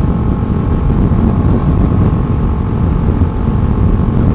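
Honda Grom's 125 cc single-cylinder engine running steadily at cruising speed, under heavy wind rush on the rider's microphone.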